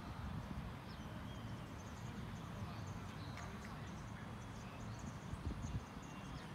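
Quiet outdoor ambience: a steady low rumble with faint distant voices and a faint, rapid high-pitched chirping.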